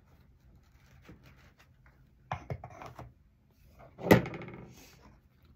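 Large ribbon spools being handled and set down on a wooden craft table and spool board: a few light knocks a little past two seconds in, then one loud hollow knock with a brief ring about four seconds in.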